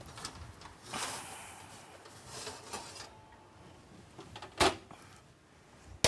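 Oven door opened and a metal baking tray of ramekins slid out and handled, with a rasping scrape about a second in and one sharp clank about four and a half seconds in.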